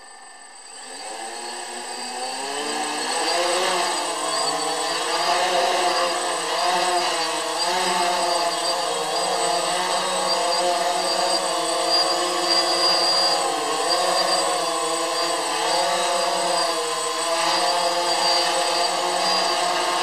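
DJI Phantom quadcopter's four brushless motors and propellers spinning up from a standstill, rising in pitch over the first few seconds as the drone lifts off. It then holds a steady hover, its buzzing whir wavering up and down in pitch as the motors adjust.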